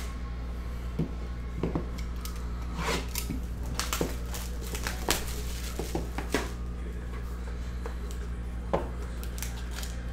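Hands handling and opening a boxed set of trading card packs (a Court Kings hobby box): scattered short taps, scrapes and rustles of cardboard and plastic, over a steady low hum.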